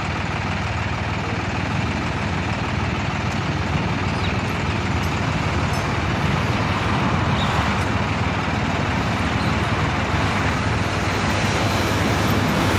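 Mobile crane's engine idling steadily while its boom holds the load.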